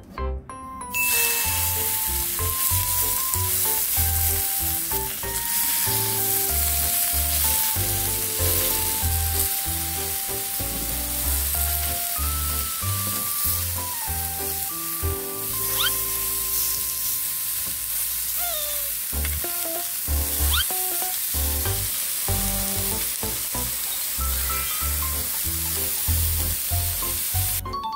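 Steak sizzling as it pan-fries, a steady hiss that starts about a second in and cuts off just before the end, with background music playing over it.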